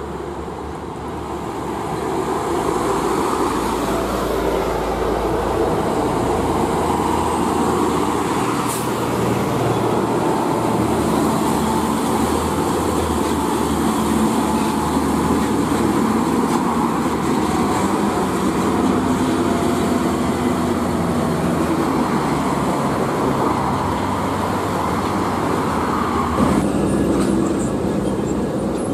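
Heavy diesel trucks passing close by, engines running over a steady rumble of road traffic. The sound changes abruptly about two seconds before the end.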